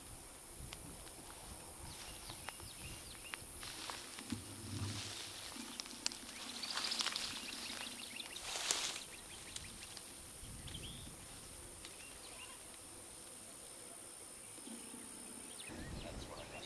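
Faint outdoor field ambience: a steady thin high-pitched whine with scattered small chirps and ticks, and a brief louder rustling hiss about seven seconds in. The whine stops shortly before the end.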